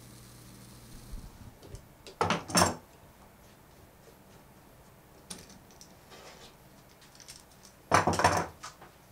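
Perforated metal sheet clattering and rattling as it is handled on a wooden ukulele side-bending form: two loud metallic clatters, about two seconds in and again near the end, with lighter clinks between.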